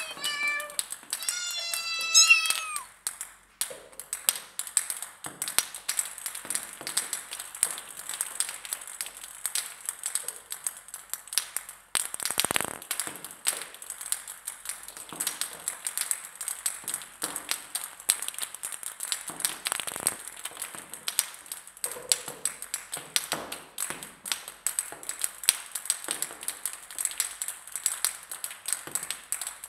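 A cat meows twice in the first few seconds. Then table-tennis balls drop and bounce on a hard surface in a long scatter of quick, light clicks.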